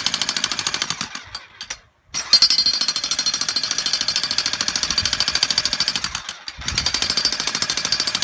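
Corded electric jackhammer running, hammering rapidly into packed gravel and dirt ground in three runs, with short pauses about two seconds and six and a half seconds in.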